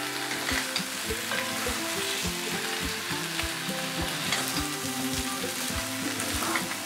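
Chicken, potatoes, carrots, onion, ground roasted peanuts and curry paste sizzling in a hot frying pan while a spatula stirs them, with frequent irregular scrapes and knocks of the spatula against the pan.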